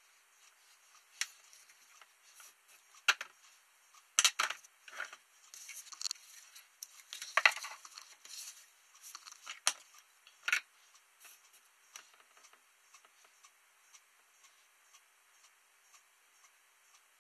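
Scattered light clicks, taps and short scrapes as a graphics card is shifted about on a desk and worked with metal tweezers and a soldering iron, busiest in the middle and sparse towards the end.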